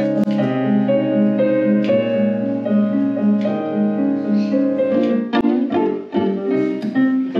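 Technics digital stage piano playing an instrumental passage: a melody over held chords, the notes changing in an even rhythm.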